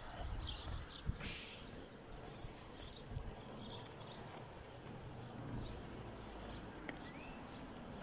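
Quiet outdoor street ambience heard while walking, with a low rumble and a few faint, high bird chirps. A thin, high, steady tone comes and goes.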